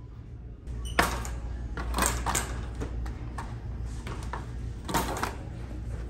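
Several sharp knocks and plastic rattles, the loudest about a second in and another near five seconds, as a boxed plastic hose-end feeder kit is handled and set into a wire shopping cart, over a steady low hum.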